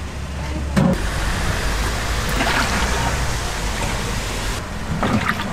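Cooking oil pouring from a large metal tin into a cast-iron cauldron, a steady splashing stream into the oil already in the pot, with a short knock about a second in and another near the end.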